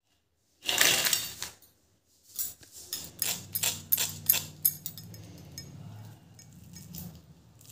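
Crispy fried semolina-and-potato snacks slide off one steel plate onto another with a brief clatter about a second in. This is followed by a quick run of sharp clinks and taps as a steel knife taps the crisp crust. A low steady hum sits underneath in the second half.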